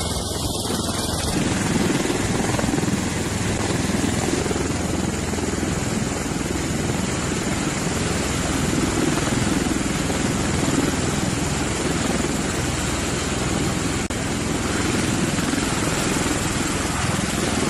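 V-22 Osprey tiltrotor hovering low with its proprotors turned up in helicopter mode, a loud, steady rotor and engine noise. It sets in about a second in.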